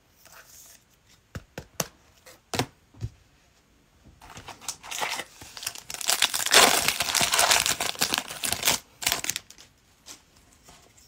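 A few light clicks as a trading-card pack is handled, then its wrapper is torn open and crinkled for about five seconds, the crackling loudest in the middle.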